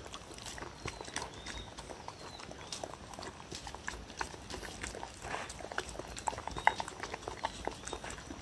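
A dog eating soft, moist food from a wooden bowl: an uneven run of wet licking, smacking and chewing clicks, the sharpest about two-thirds of the way through.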